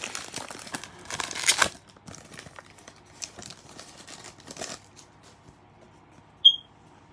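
Foil trading-card pack wrappers crinkling and cards being handled, loudest in the first second and a half, then small scattered rustles and clicks. About six and a half seconds in comes one brief, loud, high-pitched chirp.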